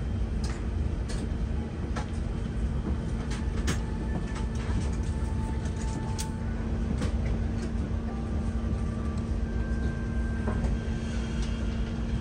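Steady cabin hum of an Airbus A380 parked at the gate with its air conditioning running: a low rumble under a constant droning tone, with scattered light clicks and knocks.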